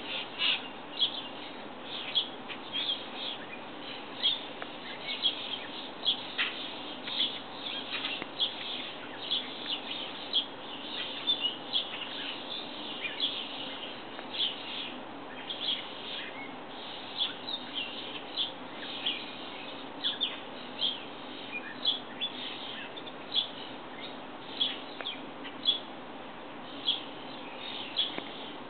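Small birds chirping: many short, high chirps at an irregular pace of about one or two a second, over a steady background hiss.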